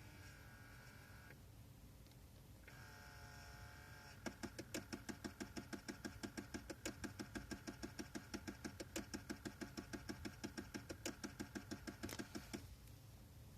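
Nissan S15 Silvia's air-conditioning bi-level mode door actuator: its small electric motor whines briefly twice, then runs on with a rapid, even clicking, about six clicks a second, for roughly eight seconds before stopping. The clicking is typical of chipped teeth on the actuator's internal gear skipping when the vents are set to feet-only.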